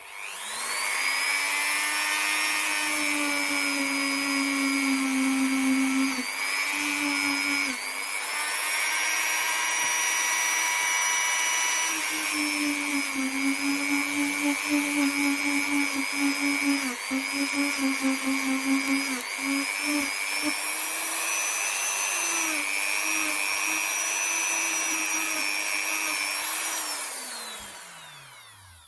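Dremel-type rotary tool spinning up, running at high speed while its bit grinds a mark out of a small steel revolver part, then winding down near the end. The whine dips briefly in pitch several times as the bit is pressed into the work.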